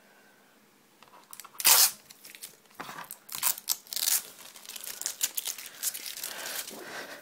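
Packaging crinkling and tearing as it is handled. Quiet at first, then one loud rip about a second and a half in, followed by continuous crackling and rustling.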